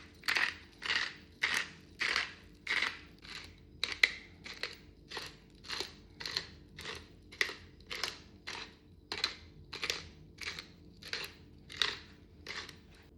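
Rhythmic crunching strokes of kitchen food preparation, a little under two a second, each short and even.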